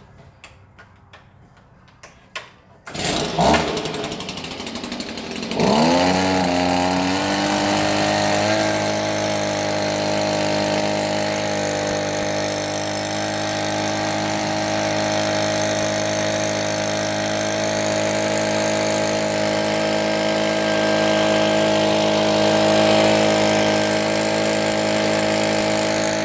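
Gas-powered leaf blower starting about three seconds in, then revving up with a rising pitch and holding a steady, loud high-speed run while blowing rinse water off a car's paint.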